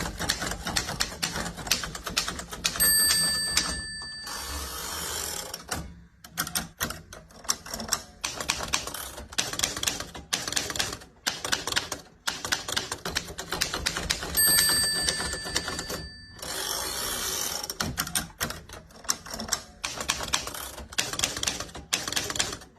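Manual typewriter typing rapidly, a quick run of key strikes. Twice, about 3 and 14.5 seconds in, the end-of-line bell rings and the carriage is pushed back with a rasping slide before the typing goes on.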